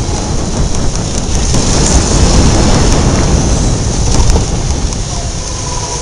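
Onboard sound of a go-kart driving a lap: a loud, dense rumble of the kart and wind on the microphone, swelling about two seconds in and easing off after about four and a half seconds.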